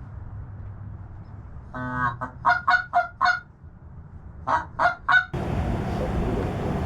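Goose honks: a run of five short calls, then three more a second later. About two-thirds of the way in, a steady rushing noise abruptly takes over.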